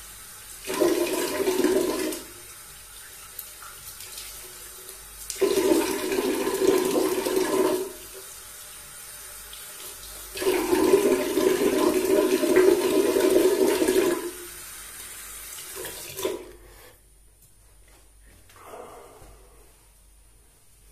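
Bathroom tap running into the sink to rinse off between shaving passes, with three louder splashing spells of two to four seconds each. The water stops a few seconds before the end.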